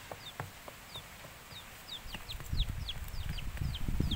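A chick peeping over and over in short, high, falling chirps, a few a second. From about halfway in, dull thuds and scrapes of a hand hoe chopping into the dirt join in and grow louder.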